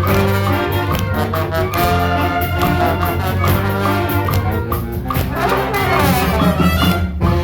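Wind band playing, with brass such as trumpets and trombones leading over a steady bass line and a regular beat.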